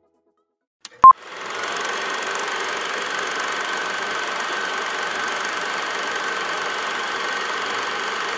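A click and one short, very loud beep about a second in, then a small engine starts running steadily and keeps running.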